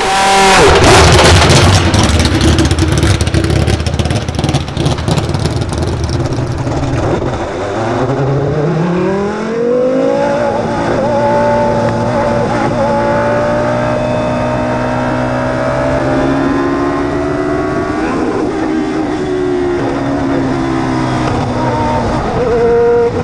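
Prost Formula 1 car's V10 engine running hard. It is loud and rough at first. About eight seconds in, its pitch climbs steadily as the car accelerates, then holds high, rising slowly, until an abrupt pitch change near the end.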